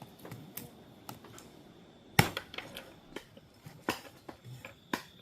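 A kitchen knife cutting on a cutting board, giving irregular knocks and clicks, the loudest about two seconds in.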